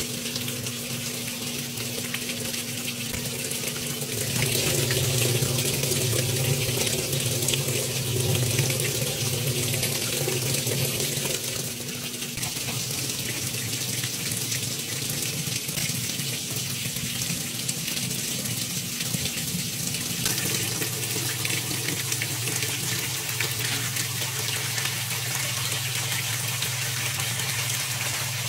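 Top-load washing machine filling: water pours from the rim and splashes onto the tub floor and impeller in a steady rush, with a low hum underneath.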